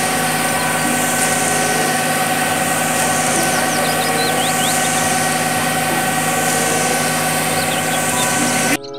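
Concrete mixer truck's diesel engine running steadily as the drum discharges concrete down the chute; it cuts off abruptly just before the end.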